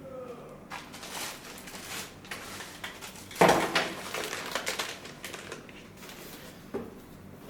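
Plastic packaging rustling and the connectors of a car-stereo wiring harness clattering as it is handled, with one sharper knock about three and a half seconds in.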